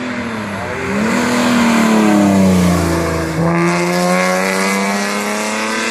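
Rally car engine at racing speed. Its note climbs about a second in, then falls away as the car slows, and after a brief break holds steady as it pulls on.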